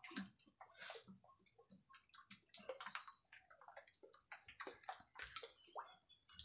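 Near silence with faint, irregular clicks and scrapes as a drill bit is moved against a split bamboo tube. The electric drill's motor is not running.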